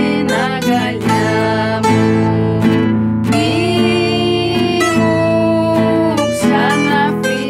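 Greek bouzouki playing a plucked melody with quick repeated notes over sustained low notes.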